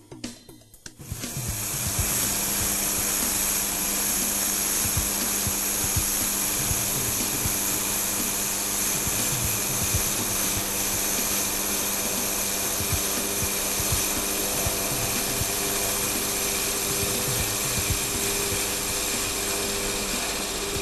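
Nova wood lathe with a tool-post holder running and cutting a turning workpiece, a steady motor hum with an even cutting hiss, starting about a second in and holding level throughout.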